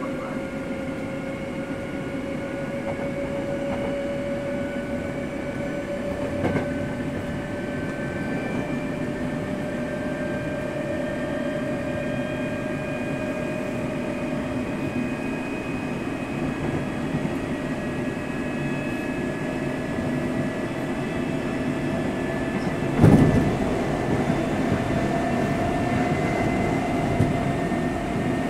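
Hankyu 7000 series electric train car 7621 running, heard inside the car over the bogie. Its DC traction motors and gearing whine, and the pitch rises slowly as the train gains speed, over steady rolling noise. A single loud thump comes near the end.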